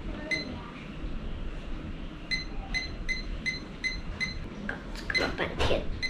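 Short high electronic beeps from a small digital alarm clock, one near the start and then a regular run of about two to three beeps a second from about two seconds in. They are the clock's button-press beeps while its time is being set.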